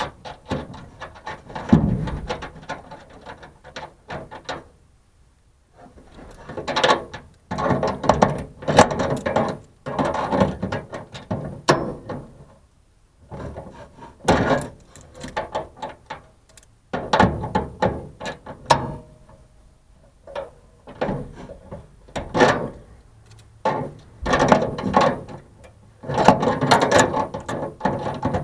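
Bursts of metallic clicking and rattling as a replacement lock and its retaining nut are worked into a truck-bed toolbox lid, with short pauses between the bursts.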